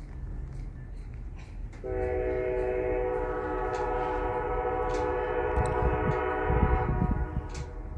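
Diesel freight locomotive's multi-note air horn sounding one long blast of about five seconds, starting about two seconds in, over a low rumble.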